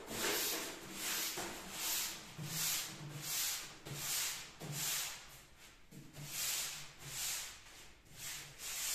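Paper wallpaper roll rubbed back and forth over an unrolled sheet of wallpaper: an even, rhythmic paper rustle that swells about once every three-quarters of a second.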